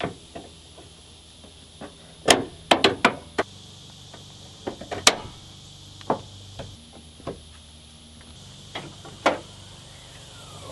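A scattered series of sharp knocks and clicks, like hard parts being handled. The loudest comes about two seconds in, followed by a quick cluster of several, another about five seconds in, and fainter ones later.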